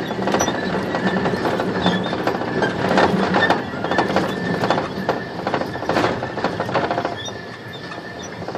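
Inside a moving airport shuttle van: the van's body and fittings rattle and squeak in dense, irregular knocks over road and engine noise on a rough ride.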